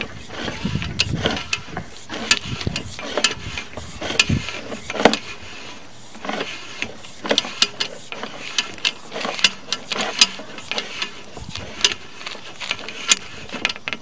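Irregular clicks, knocks and rattles of a sewer inspection camera's push cable being fed down the pipe, with some low rumbling in the first few seconds.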